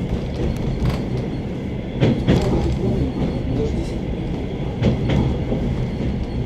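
Wheels of a suburban train clacking over rail joints as it runs at speed, the clacks coming in pairs every couple of seconds over a steady rumble.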